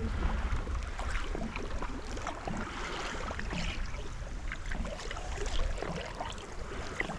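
Steady low rumble of wind and lake water around a small fishing boat, with scattered small ticks and splashes.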